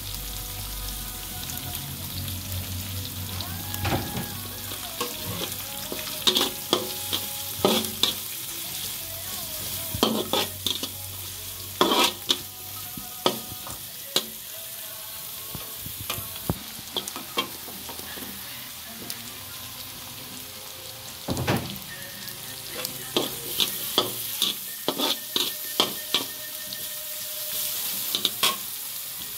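Diced chicken and carrots frying in a wok with a steady sizzle, stirred and scraped with a metal spatula that clacks sharply against the pan in quick runs, with a quieter stretch of plain sizzling in the middle.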